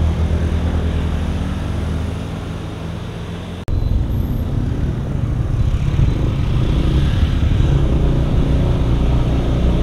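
Yamaha scooter's engine running while riding, a steady low rumble; it drops out for an instant about a third of the way in and comes back louder.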